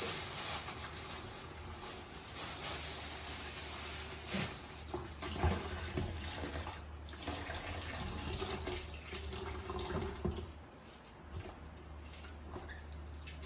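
Water running, like a tap into a sink, with a few knocks; the flow stops about ten and a half seconds in.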